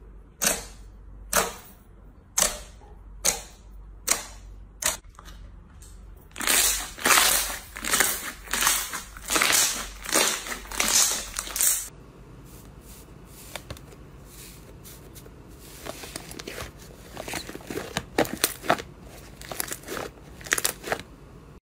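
Fingers poking into glossy white slime, each press giving a sharp pop about once a second, then denser crackling and squelching as the slime is balled up and squeezed. About halfway through, quieter crackling as yellow slime is pressed in a plastic tub, growing busier near the end.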